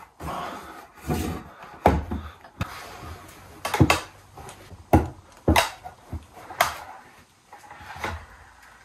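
Freshly assembled stool being tested for sturdiness: a dozen or so irregular wooden knocks, with scraping and rubbing in between, as it is handled, rocked and loaded.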